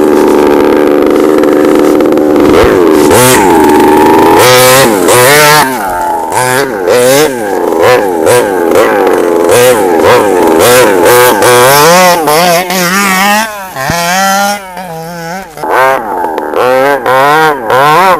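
Small two-stroke petrol engine of a 1/5-scale FG Beetle RC car, running at a steady high pitch for the first few seconds, then revving up and falling back over and over as the car is driven, with a brief quieter spell about two-thirds of the way through.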